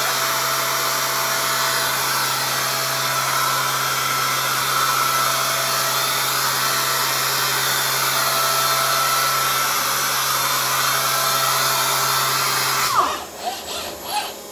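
Robot-mounted palm sander running steadily on a wooden slab, a loud even whir with a constant hum. It stops abruptly about a second before the end, followed by fainter whirs as the robot arm lifts the sanding head away.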